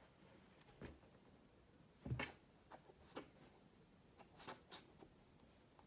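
Kitten's paws tapping and scrabbling at a cardboard box, as scattered light taps with one louder thump about two seconds in.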